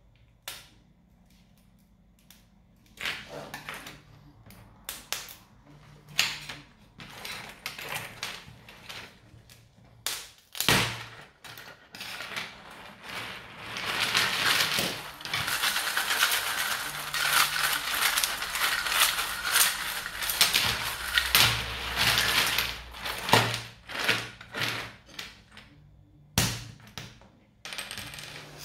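PLA 3D print being pried off a printer bed sheet with a knife and a scraper: scattered sharp clicks and cracks as it pops loose, then a long stretch of dense crackling and scraping, with a few loud snaps.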